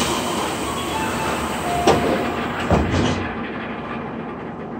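Inside a Tobu 9050-series commuter train standing at a subway platform, the doors close with two knocks about two and nearly three seconds in. The higher platform noise is then cut off, leaving the quieter hum of the car.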